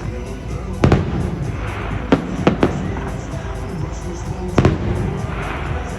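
Fireworks bursting over a show soundtrack: a sharp bang about a second in, a quick cluster of bangs around two and a half seconds, and another near the end, with the music playing throughout.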